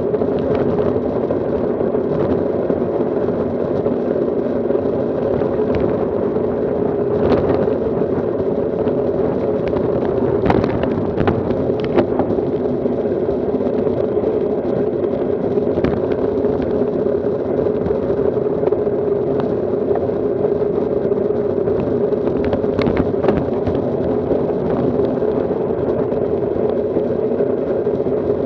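Steady rush of wind on the microphone and tyre noise on rough asphalt from a riding road bike, with a few sharp clicks and knocks now and then.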